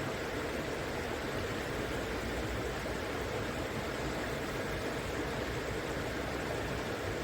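River water rushing steadily, an even, unbroken flowing sound.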